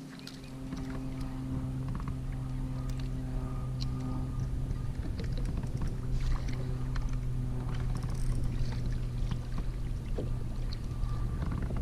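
Wind buffeting the microphone and water slapping against a kayak hull on choppy open water, with a steady low hum underneath and a few light clicks.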